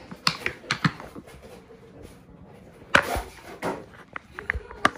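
Cat chewing dry kibble off the floor: scattered sharp crunches, with a louder knock about three seconds in.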